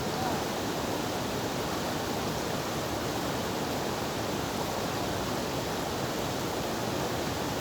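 Mountain valley stream rushing steadily.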